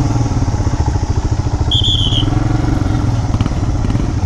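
Motorcycle engine running steadily with a fast low pulse. A brief high whistle sounds about two seconds in.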